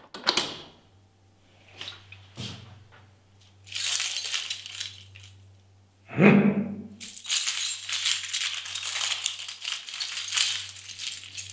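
A bunch of metal keys jangling as they are handled and sorted through, after a few sharp clicks of a key at a door lock near the start. A short, lower sound cuts in about six seconds in, before the jangling runs on steadily.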